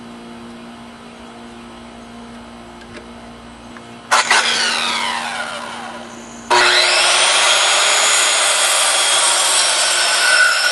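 Corded Ryobi circular saw, first quiet for about four seconds. It is then triggered briefly and winds down in pitch. About six and a half seconds in it starts again and cuts through a pressure-treated pine 2x4 to the end, loud and steady.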